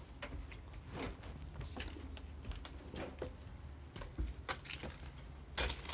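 Irregular light clicks and crunches, footsteps on a debris-strewn floor, over a steady low hum, with a louder sharp knock near the end.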